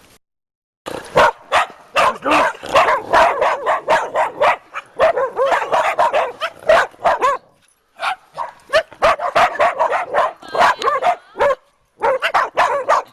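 Dog barking and yapping repeatedly in rapid runs, starting about a second in, with two short pauses.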